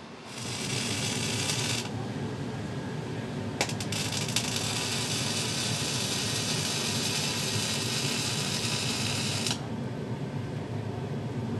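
Robotic arc welding: the welding robot's torch strikes an arc for about a second and a half, stops, then strikes again with a sharp crack and welds steadily for about six seconds before cutting off suddenly. The arc is a steady hiss over a continuous low hum.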